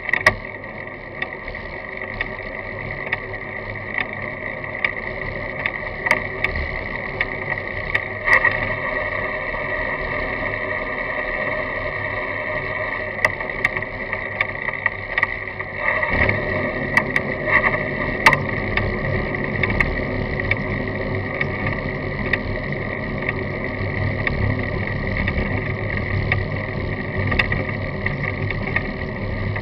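Ride noise picked up by a camera mounted on a road bicycle: tyres rolling on asphalt and wind over the mount, with a steady high hum and frequent sharp rattling knocks as the bike goes over bumps. The low rumble gets louder about sixteen seconds in.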